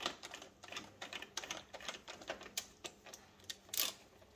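Hand screwdriver tightening a door lock cylinder's retaining screw: a run of faint, irregular metal clicks, with one louder click near the end.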